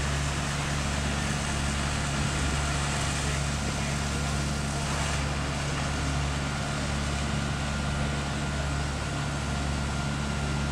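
Fire engines' diesel motors running steadily while pumping water to the aerial ladder, a low even hum with no change in pitch.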